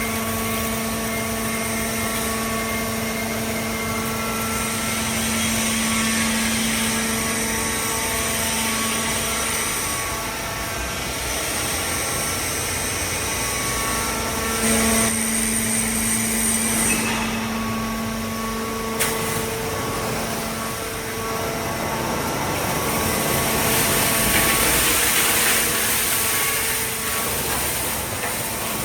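Hydraulic metal baler running: a steady machine hum from its pump and motor, swelling and easing as it works. There is one sharp click a little past the middle.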